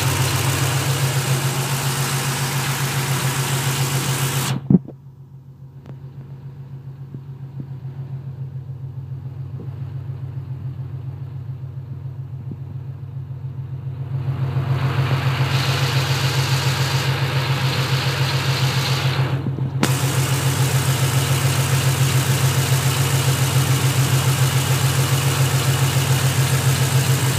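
Ford Mustang engine idling with a rapid clicking over its steady hum. The clicking cuts off suddenly about five seconds in, leaving only the low idle hum, then comes back gradually about ten seconds later and runs on to the end.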